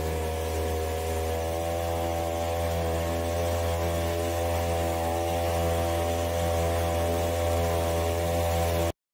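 Boat outboard motor running at a steady speed, a constant low engine note that cuts off abruptly near the end.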